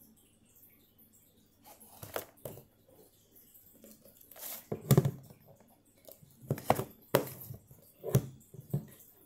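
Cardboard putty box and a round metal putty tin being handled and set down on a tabletop: a string of separate knocks, taps and short rustles, the loudest about five seconds in.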